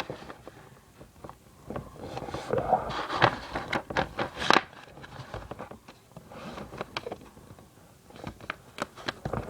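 Sheet of copy paper being folded and creased by hand: irregular rustling and crinkling with sharp crackles as the fold is pressed flat, loudest in the middle and again near the end.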